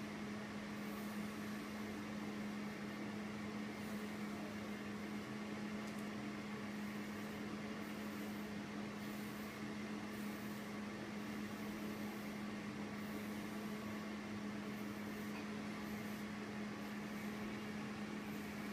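Steady mechanical hum at one low pitch with a soft hiss, as from a household appliance or fan running in the room. Faint swishes of a deshedding brush drawn through a dog's coat come and go over it.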